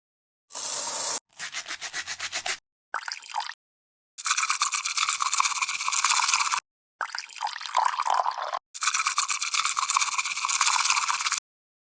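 Matcha being whisked with a bamboo whisk (chasen), a rapid brushing swish in several separate bursts.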